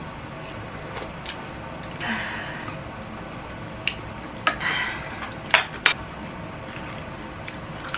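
Chopsticks clinking and tapping against bowls and dishes during a meal, with a few sharp clicks between about four and six seconds in.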